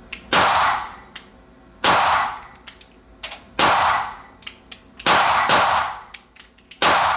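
Glock 19X 9mm pistol fired six times, about one shot every second and a half with a quicker pair near the end. Each shot echoes off the walls of an indoor range, and lighter clicks fall between the shots.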